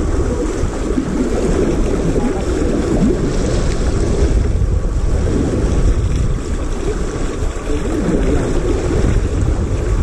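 Steady wind buffeting the microphone over sea water washing along a sailboat's hull as it sails.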